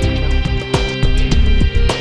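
Closing background music with a regular beat and held notes.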